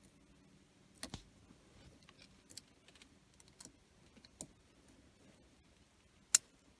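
Small plastic and metal wire terminals being pushed into an orange connector: a few light clicks and taps, then one sharp, much louder click just before the end as a terminal snaps into place.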